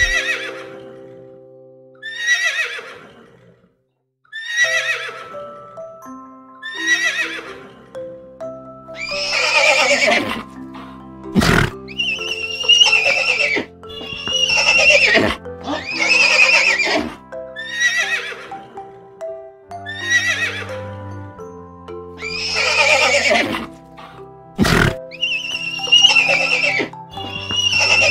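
A horse whinnying again and again, about every one to two seconds, each call starting high and falling away, over background music with held low notes. Two sharp knocks come through, one about a third of the way in and one near the end.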